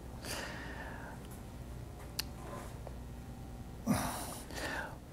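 Quiet room tone with a person's soft breathing near the microphone, twice, and a single sharp click about two seconds in.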